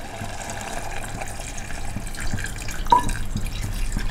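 Water pouring from a steel tumbler into mutton curry in a pressure cooker, a steady splash into the gravy, with a short click about three seconds in.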